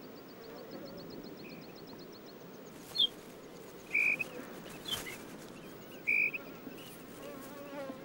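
Eurasian dotterel family calling from the nest: a few short, high single notes, the loudest about four and six seconds in, over a faint steady insect buzz. A quick series of high ticks runs through the first two seconds.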